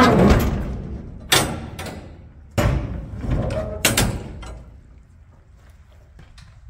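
Steel shipping-container doors being unlatched and swung open: the locking-bar handles and heavy doors clank loudly four times in the first four seconds, each clang ringing on in the steel box.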